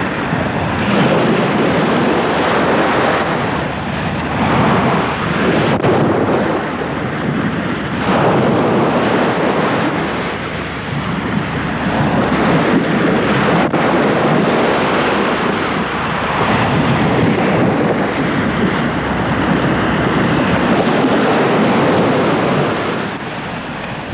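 Sea waves washing onto a sandy beach: a steady rushing noise that swells and eases about every four seconds.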